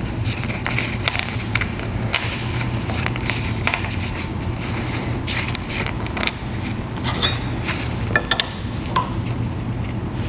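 Small metal clicks and scrapes of hand work on a rock-drill hydraulic accumulator in a vise as a Schrader valve is threaded into its gas charge port. The clicks are irregular, with a few sharper ones near the end, over a steady low hum.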